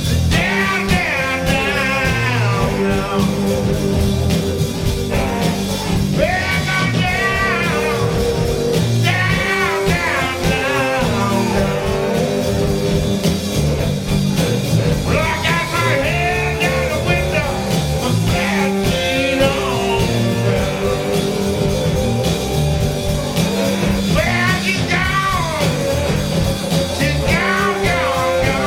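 Live blues-rock band playing: electric guitar, bass and drums with a sung vocal line.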